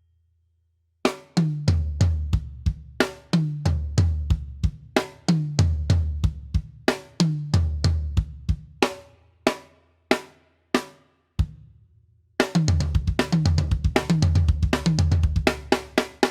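Acoustic drum kit played solo. It starts with a repeating beat of bass drum and snare with cymbal strokes, breaks off for a couple of seconds with a few scattered hits about ten seconds in, then plays a fast drum fill of rapid, dense strokes.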